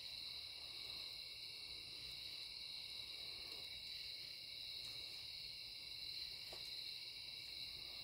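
Steady chorus of night insects such as crickets, an unbroken high-pitched trilling in several pitches at once.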